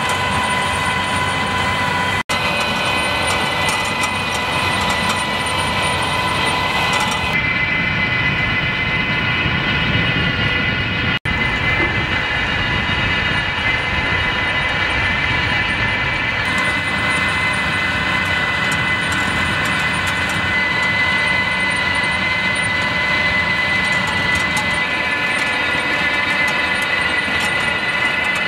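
Tractor pulling a potato planter, running steadily: an even engine drone with a steady high whine, broken by two brief gaps about two and eleven seconds in.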